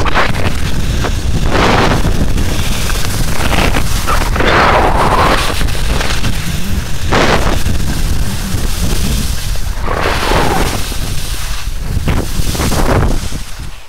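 Wind buffeting the microphone of a camera carried by a moving skier, a steady loud rumble, with skis hissing through soft, heavy 'mashed potato' snow in swells every two or three seconds as the skier turns. The noise eases right at the end.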